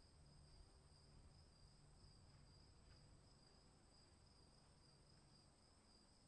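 Near silence: a faint, steady high-pitched trill at two pitches over a faint low hum.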